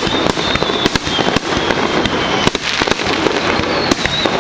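Fireworks going off in a dense, unbroken run of sharp bangs and crackling pops, several every second.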